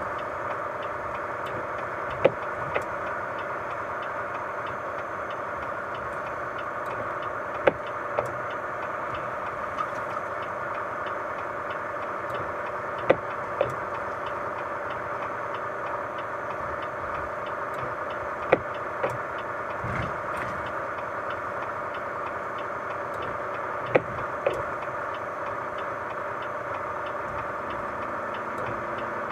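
A vehicle running with a steady hum. A pair of sharp clicks about half a second apart comes about every five and a half seconds, five times over.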